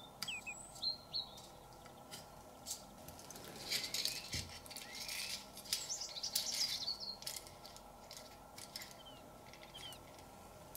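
Thin pleated aluminium foil crinkling and crackling with small clicks as it is handled and pressed into a frame, busiest in the middle. Birds chirp briefly now and then in the background.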